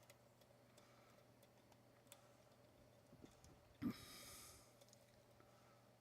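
Near silence with a few faint scattered clicks from a hook pick working the pins of a dimple lock. A short breath through the nose comes about four seconds in, the loudest sound.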